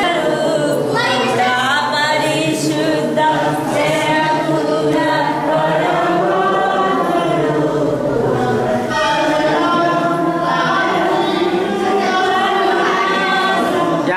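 A congregation singing a hymn together, unaccompanied, in one continuous stretch.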